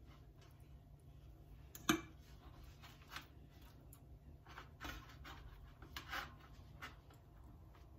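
Soft rustles and light taps as hands fold a thin buttered warqa pastry sheet on an aluminium tray, with one sharper click about two seconds in.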